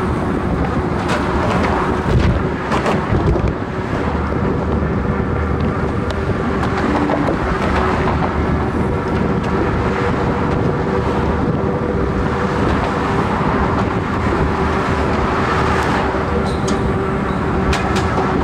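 Road traffic from cars and vans driving past on the bridge roadway alongside, with wind rushing over the microphone of a camera riding on a moving bicycle. A steady hum runs underneath, and a few light clicks come near the end.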